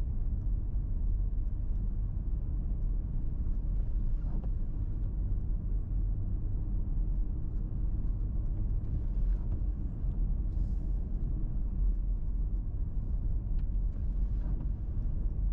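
Toyota 4Runner cruising at about 25 mph on a wet road, heard inside the cabin: a steady low rumble of engine and tyres, with a faint swish of the windshield wipers about every five seconds.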